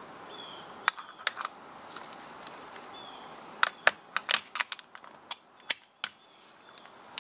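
Metal tools clicking and clacking as a low-profile oil filter housing socket is fitted onto a torque wrench's square drive: a few sharp single clicks about a second in, then a quick cluster of clicks about halfway through.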